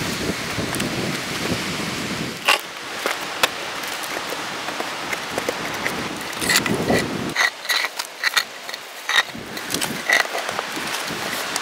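Heavy rock slabs knocking and scraping against stone as they are handled and stood in place, over a steady hiss; two sharp knocks come in the first few seconds, and the second half holds a run of sharp, irregular clicks.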